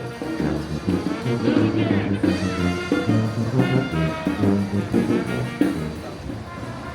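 Jazz-style music led by brass horns, easing off slightly near the end.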